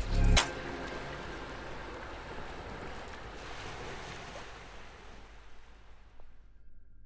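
Background music ends on a final note in the first half-second. After it, a steady rushing noise like ocean surf fades out over about six seconds.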